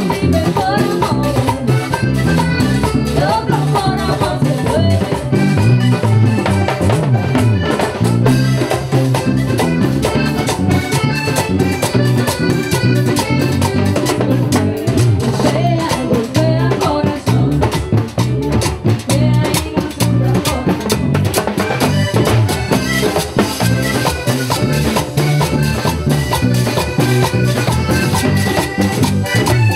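Live vallenato band playing a steady, driving rhythm: a button accordion over bass guitar, drum kit, congas and a metal scraper.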